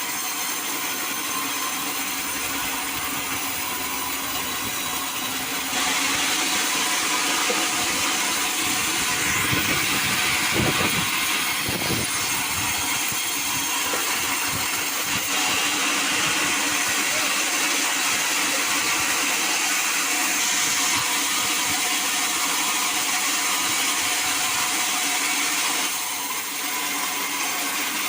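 Sawmill saw running and cutting timber: a steady mechanical hiss and whine that shifts abruptly in level a few times.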